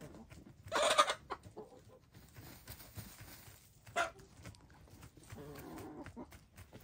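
Hens calling while dust bathing: a loud call about a second in, a shorter one about four seconds in, and soft low clucking near the end.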